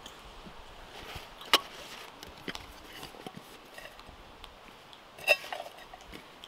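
Metal camping cookware being handled: a sharp clink about a second and a half in as the lid comes off the cook pot, a few lighter taps, then more clinks and cloth rustling about five seconds in as a cloth sack is pulled out of the pot.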